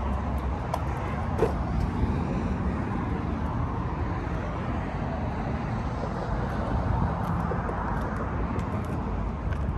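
Steady low rumble of motor vehicles with outdoor background noise and a few faint clicks.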